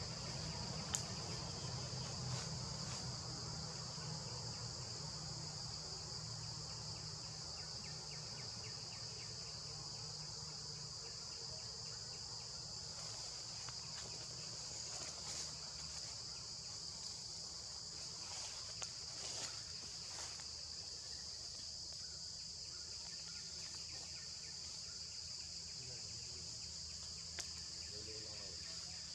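Steady, high-pitched chorus of insects buzzing without a break, with a few faint clicks here and there.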